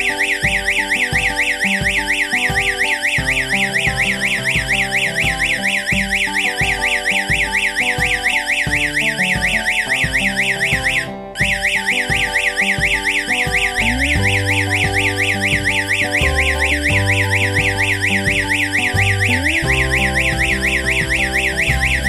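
Electronic alarm siren of a siren-strobe unit wailing in a fast, even up-and-down warble, triggered by a panic button. About eleven seconds in it cuts out for a moment and starts again: the alarm switches the siren off and re-triggers it because the panic button is still held pressed.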